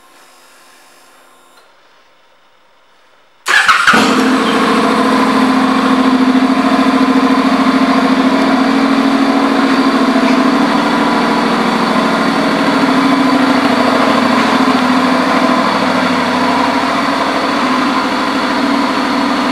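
2015 Honda CTX700 DCT's 670 cc parallel-twin engine starting suddenly about three and a half seconds in, then idling steadily.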